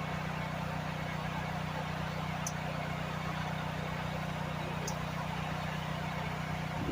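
Gas pressure washer engine running at a steady hum. Two brief high chirps sound over it, about two and a half and five seconds in.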